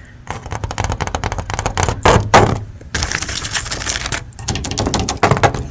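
Fingernails tapping quickly on a hard object: a fast, irregular run of clicks, with two short pauses.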